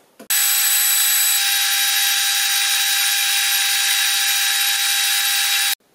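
Manual metal lathe running under a turning cut on round stock, the tool shaving chips off the spindle: a loud, steady hiss with a constant high whine. It starts and stops abruptly.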